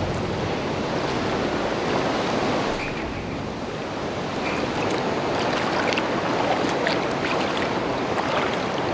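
Steady rush of water spilling through a canal lock's gates.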